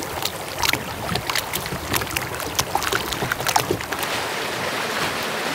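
Water rushing and splashing along the hull of a sailing catamaran moving under sail, with no engine running. It comes as many quick small splashes at first, then settles into a steadier hiss about four seconds in.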